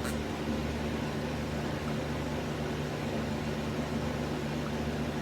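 Steady low hum with an even hiss, like a fan or air conditioner running, with a faint click at the start.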